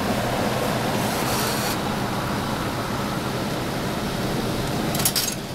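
Steady noisy hum at a drink vending machine, with a quick cluster of sharp clicks about five seconds in as its coin and selection panel is handled.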